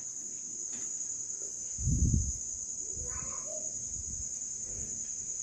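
A steady high-pitched background whine, insect-like, with a dull low thump about two seconds in and a few fainter soft knocks after it.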